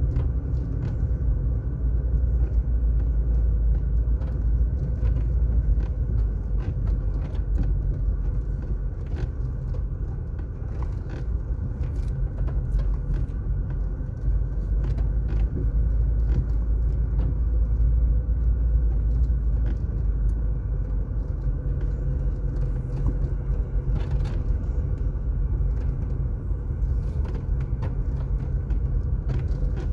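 Car driving along an asphalt road: a steady low rumble of engine and tyre noise, with scattered faint clicks.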